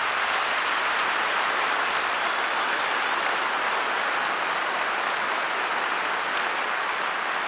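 Audience applauding steadily in a concert hall at the end of a song.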